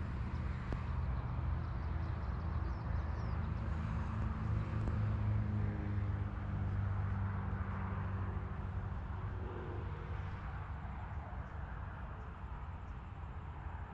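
Motor vehicle engine humming steadily, growing louder about five seconds in and slowly fading toward the end, like a vehicle passing on a road.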